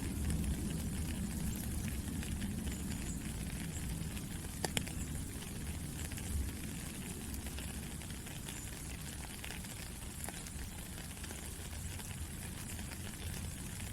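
Steady rain falling: a continuous hiss over a low rumble, with an occasional single drop ticking sharply, the clearest about five seconds in.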